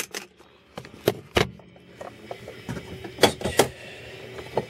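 Handling noise: a scattering of sharp knocks and clicks with soft rustling between them. The loudest come about a second and a half in and twice a little after three seconds.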